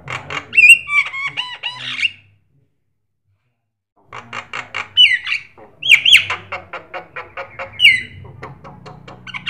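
Javan myna (jalak kebo) singing: rapid trains of clicks and chatter broken by loud, sharp whistled notes. It goes silent for about two seconds after the first burst, then starts again with three more loud whistles.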